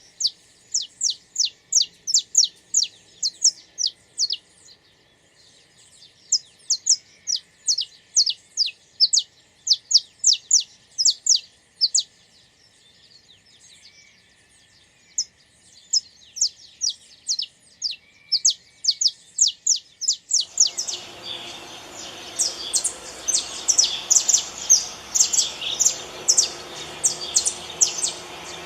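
Saffron finch singing: rapid runs of sharp, high chirping notes in phrases, with short pauses between phrases. About two-thirds of the way in, a steady background hiss comes up and the song grows louder.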